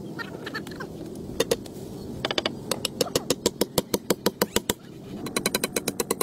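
Hammer driving a nail into a wooden plank: two blows about a second and a half in, then a fast run of ringing strikes at about six a second. After a short pause near five seconds the strikes come again, even faster.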